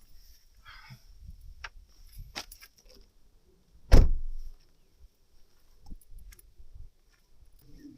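A few light clicks and rattles, then one loud heavy thump about four seconds in that dies away quickly.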